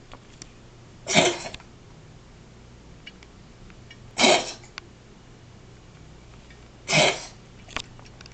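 A cat giving three short cough-like bursts about three seconds apart, which the owner finds strange and is unsure whether to call coughing or wheezing.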